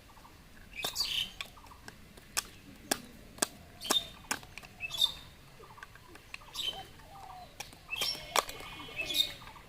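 Small knife chopping a mushroom on a miniature toy cutting board: a dozen or so sharp, irregular taps and clicks.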